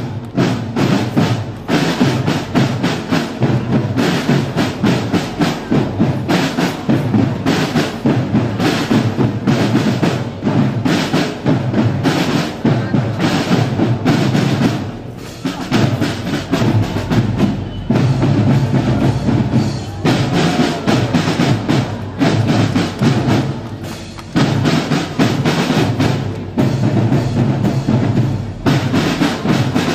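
Marching drum line of snare drums and bass drums playing a fast, dense cadence, with a couple of short breaks.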